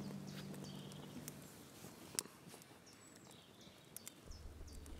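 Faint outdoor ambience with small birds chirping, short high falling chirps repeated throughout. The last of a sustained music chord fades out in the first second and a half, and there are a few sharp clicks, the loudest about two seconds in.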